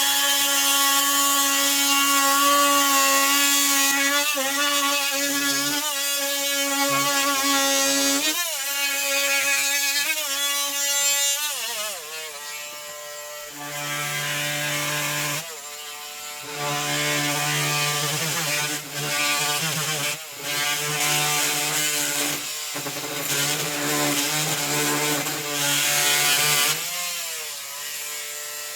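Ryu RMT 6 oscillating multi-tool running with a steady whine. Its pitch dips briefly several times as the blade bogs under load, and about halfway through the sound turns lower and breaks off and restarts in short stretches.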